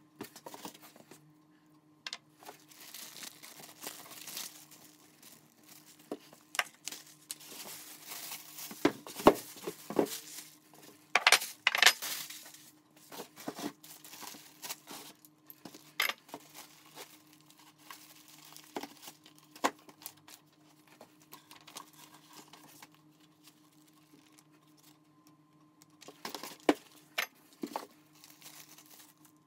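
Plastic parts bags crinkling and rustling as they are handled and lifted out of styrofoam packaging, with scattered clicks and taps of the bagged parts. A faint steady hum runs underneath.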